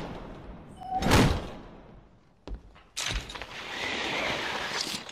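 A heavy thud about a second in that dies away slowly, then two short clicks and about two seconds of rushing hiss that stops suddenly near the end.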